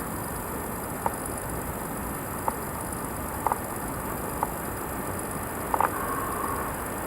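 Steady hiss of a VHS-C camcorder recording outdoors, broken by about five short, sharp clicks spaced a second or so apart.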